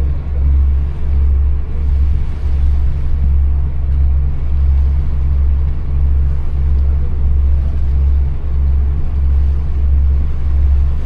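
Low, steady engine rumble with a slow, regular throb.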